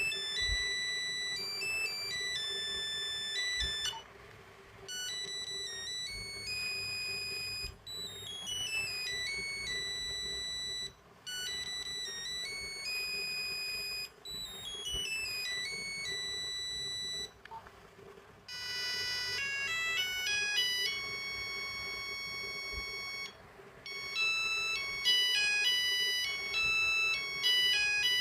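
Nokia 8250 ringtones playing through the phone's small speaker: a monophonic melody of single beeping notes that repeats in phrases with short breaks. About two-thirds of the way in, a different ringtone tune starts.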